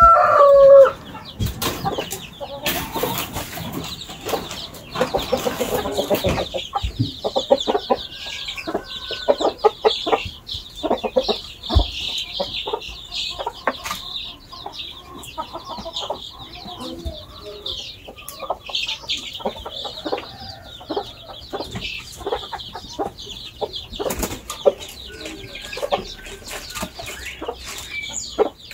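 Young chickens peeping in a continuous high chorus, with many small taps as they peck at balls of feed mixed with maseca dough. A rooster's crow ends about a second in, followed by a few seconds of rustling.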